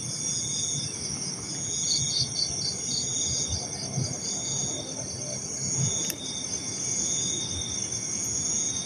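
Night insects, crickets, chirping in chorus: several overlapping high-pitched trills, one of them pulsing quickly, and another call repeating every second or two, over a low rustling.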